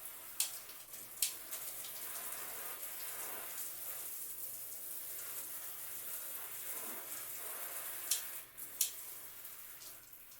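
Handheld shower head spraying water steadily on its mix setting. A few sharp clicks come about a second in and again near the end.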